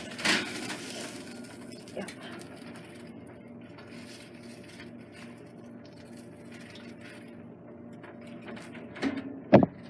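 Aluminium foil packet crinkling and crackling as it is handled hot from the oven and opened, over a steady low hum.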